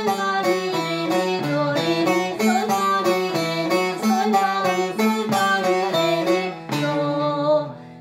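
Bağlama playing a quick run of single plucked notes, about five a second, in a stepwise practice melody, ending on a longer held note that fades away near the end.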